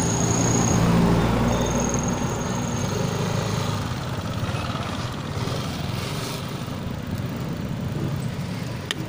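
Engine of a motorized tricycle running close by, loudest about a second in and fading over the next few seconds, heard with wind rumble on the microphone of a moving bicycle.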